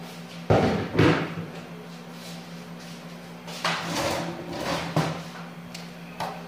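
Kitchen clatter as things are handled: two sharp knocks about half a second apart, a rougher rattling clatter midway, and another knock near the end, over a low steady hum.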